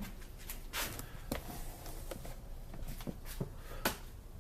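A handful of short, scattered knocks and clicks, about six of them at irregular intervals, over faint background noise.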